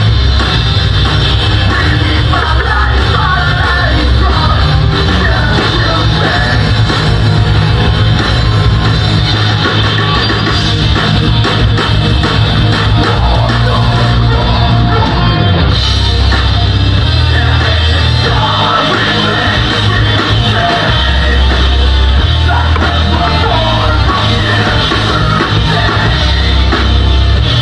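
Metalcore band playing live and loud: distorted electric guitars, bass and drums with sung and yelled vocals.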